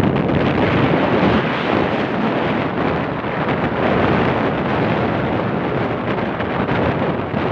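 Ocean waves breaking and washing in, a steady dense rush, with wind buffeting the microphone.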